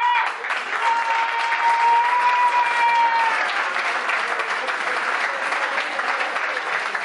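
A room full of people applauding steadily, with a long held high note sounding over the clapping for the first few seconds.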